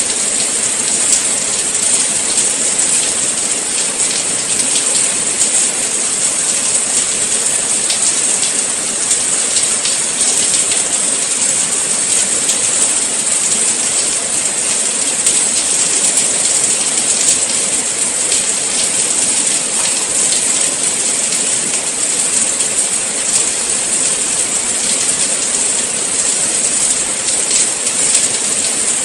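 Steady rain falling: an even hiss made up of a dense patter of fine drops.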